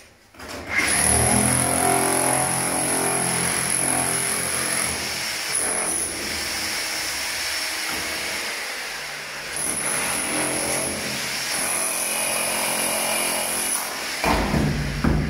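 Handheld power tool running in long, loud stretches with a high whine, cutting into the brick and concrete around a door opening. A heavy low thump comes near the end.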